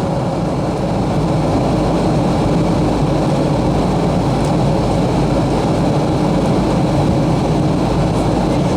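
Steady cabin noise of a Boeing 737-300 airliner in flight: a constant rumble of airflow and the CFM56 turbofan engines with a faint steady hum, as the aircraft nears its approach.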